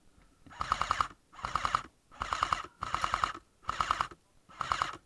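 Airsoft electric rifle firing six short full-auto bursts in a steady rhythm, each burst a rapid string of clicks about half a second long.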